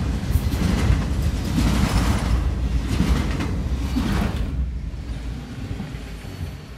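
A long freight train of autorack cars rolling past on the rails: a steady heavy rumble of wheels on track with rattles and clanks. About four and a half seconds in it turns duller and begins to fade, heard from inside a car as the train moves away.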